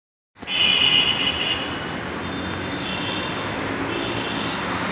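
Steady city traffic noise, an even rush with faint high whining tones in the first second and a half and again near the end; it cuts in abruptly just after the start.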